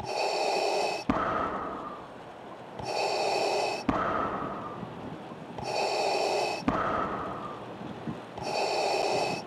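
Darth Vader's mechanical respirator breathing: a hissing inhale and a duller exhale, repeated evenly about four times, one breath roughly every three seconds.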